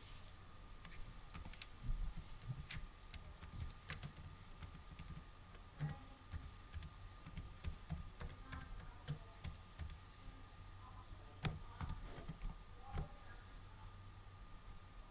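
Computer keyboard being typed on in irregular runs of keystrokes, with a faint steady high whine underneath.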